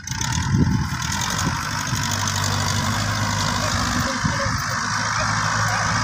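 Tractor diesel engine running steadily while it pulls a rotary tiller through a field, with a steady hiss over it.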